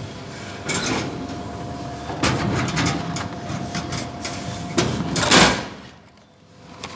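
A vending machine's dispensing mechanism runs with a steady hum and rattling for about four seconds. Then comes a loud clunk as the packaged diecast car drops into the collection tray.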